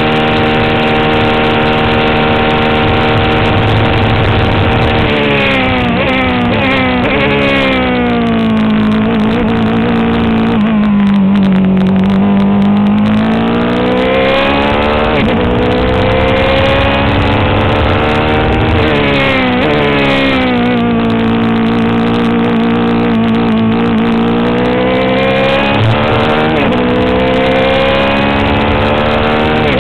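Onboard sound of a Swift DB4 Toyota Atlantic open-wheel race car's engine at racing speed. It holds steady at high revs for the first few seconds, then the pitch falls for several seconds as the car slows and downshifts. It then climbs again through the gears, with further drops and rises later on.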